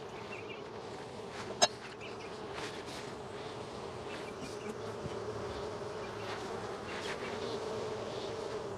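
Honey bees buzzing steadily around an open hive, with a single sharp click about a second and a half in.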